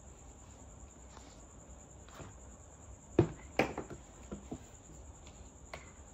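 Light clicks and taps of small plastic and cardboard toy pieces being handled and set down, with two sharper knocks a little past halfway followed by a few softer taps.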